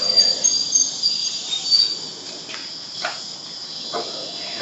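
TILO ETR 524 (Stadler FLIRT) electric train at the platform squealing: short high-pitched squeals in the first two seconds settle into a steady high tone, with a few light knocks.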